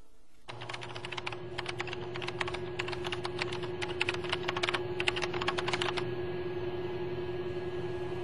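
Typing on a computer keyboard: quick runs of key clicks with short pauses between them, stopping about six seconds in. A steady low hum starts with the typing and carries on underneath.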